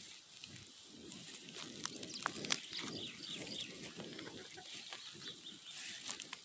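Faint scattered calls of free-ranging chickens and small birds, short chirps and clucks, over the light rustle of footsteps through pasture grass.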